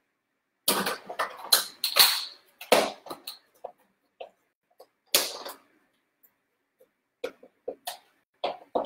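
Plastic food containers being handled: a small hummus cup set into a salad bowl and a green plastic lid fitted and pressed on, a run of sharp clacks and rustles in the first few seconds, another about five seconds in, and lighter taps near the end.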